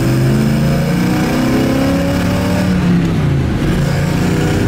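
A 1970 Chevelle SS's 396 cubic-inch big-block V8 pulling the car along, heard from inside the cabin. The engine note climbs gently, then drops about three seconds in as the revs fall, and holds steady after that.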